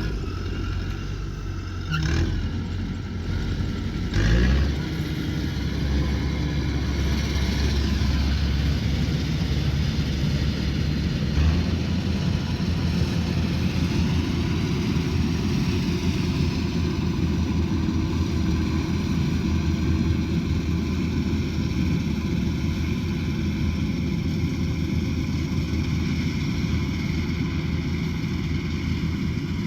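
Combine harvester engine running under load, with a brief change in pitch and a couple of knocks in the first few seconds before settling into a steady drone.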